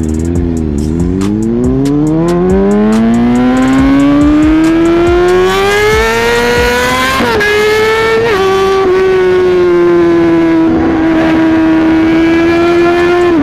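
Honda CB650R inline-four engine accelerating hard: the pitch climbs steadily for about six seconds, drops at an upshift about seven seconds in and again at a second shift a second later, then holds steady at cruising revs.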